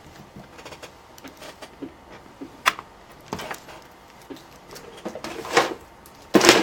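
Scattered light clicks and knocks of small objects being handled on a workbench, with one sharp click partway through and a louder clatter near the end.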